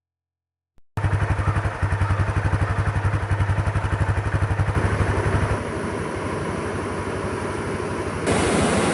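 An engine idling with a fast, even pulse. About halfway through it turns smoother and quieter, and near the end a louder rushing noise comes in.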